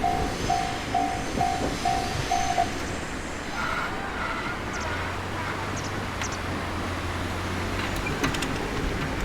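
Railway level crossing's warning bell ringing in a steady repeated ding, about three a second, then stopping about two and a half seconds in: the sign that the train has cleared and the crossing is opening. Rumbling vehicle noise continues underneath, with a steady low engine hum from about five seconds in.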